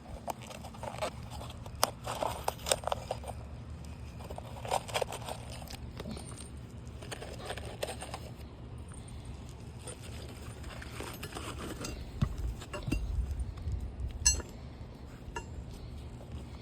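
Nails being worked out and handled: repeated metallic clinks and scraping rattles, over a steady low hum.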